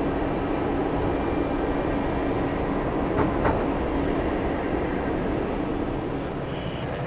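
Jet engines running at an airport: a steady, even rumble with a low hum, with two faint brief sounds about three seconds in.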